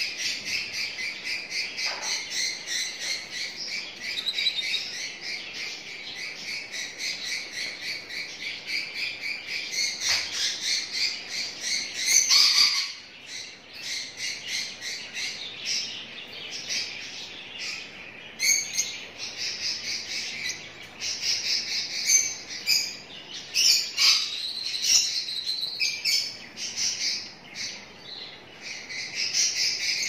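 Many caged birds chirping and twittering at once, a rapid, dense chatter of high chirps, briefly louder about twelve seconds in.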